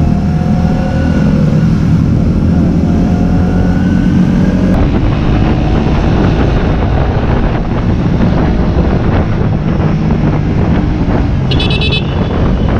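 Motorcycle engine running under way with wind rushing over the microphone; the engine note rises slightly in the first few seconds, then the wind noise takes over. A brief high beep sounds near the end.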